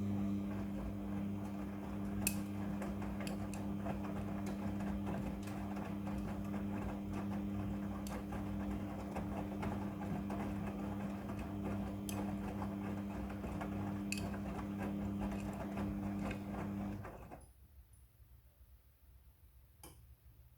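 Midea front-loading washing machine running mid-cycle with a steady hum, which stops suddenly about 17 seconds in. A few faint clicks are heard along the way.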